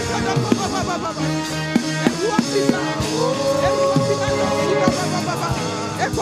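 Live worship band playing: long held notes over a drum kit keeping a steady beat.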